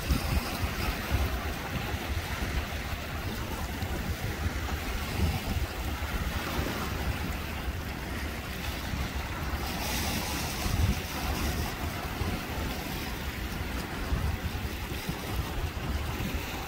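Small waves washing over a rocky shore, with wind rumbling on the microphone. A louder wash of surf comes about ten seconds in.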